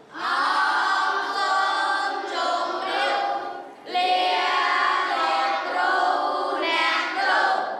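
A group of boys singing together in unison in two long phrases, with a brief break for breath about four seconds in.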